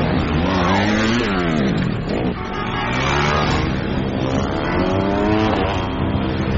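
Motorcycle engines revving hard at speed, the pitch climbing and dropping several times as the throttle opens and closes.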